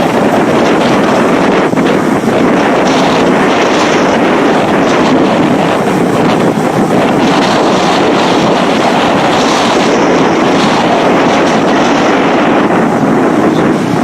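Steady rushing noise of wind on the microphone mixed with the running of an amphibious bus moving through water.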